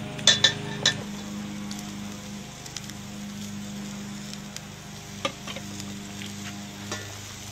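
Bone-in steaks sizzling on a steel campsite grill over wood coals, with scattered small crackles. A few sharp clicks sound near the start.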